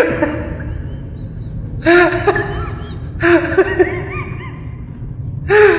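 A person laughing in four bouts of short rising-and-falling "ha" syllables, over a steady low hum.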